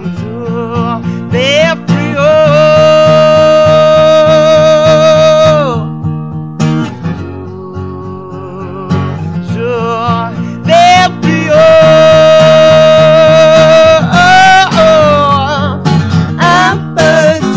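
A woman singing long held notes over a live acoustic guitar, with two long notes of about four seconds each, one a couple of seconds in and another past the middle, and shorter sung phrases between them.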